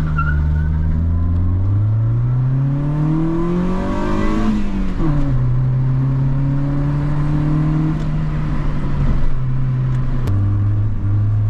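Honda Civic 1.5 VTEC four-cylinder engine under acceleration. Its pitch climbs for about three seconds and falls sharply at an upshift about five seconds in. It then holds a steady note and steps down once more near the end.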